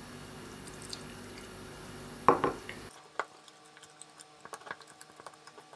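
Sourdough starter being stirred in a glass jar with a wooden spoon. There is one loud knock of spoon on jar a little past two seconds, then soft, irregular clicks of the spoon against the glass that grow busier near the end.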